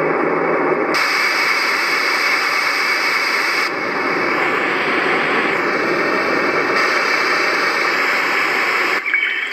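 Roffie white noise sound machine playing its white-noise or static presets through its small built-in speaker: a steady hiss that switches abruptly to a slightly different noise track about every three seconds as the presets are stepped through.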